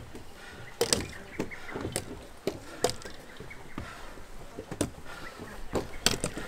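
Hikers' steps on a steep mountain trail: irregular knocks and scuffs, a few to the second, with the sharpest knocks about a second in and again near the end.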